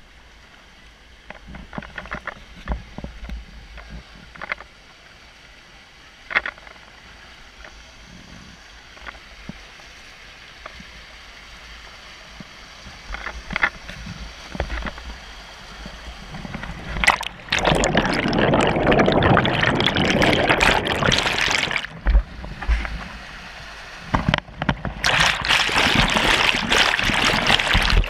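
Water heard from an underwater camera: a low murmur with scattered bubbling clicks and pops, then loud rushing, churning waterfall water over the microphone from about 17 to 21 seconds, easing briefly, and again from about 24 seconds on.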